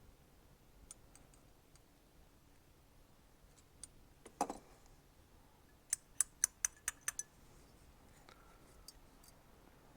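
Small metal tools clicking and tapping on a motorcycle carburetor while the needle jet is worked into its bore with a punch. There is a single dull knock about four and a half seconds in, then a quick run of seven sharp clicks about six to seven seconds in.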